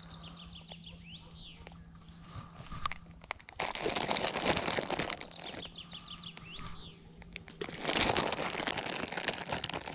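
Plastic groundbait packet crinkling as it is handled, in two rustling spells about three and a half seconds in and about eight seconds in. A songbird sings the same short phrase of quick falling notes twice, near the start and in the middle.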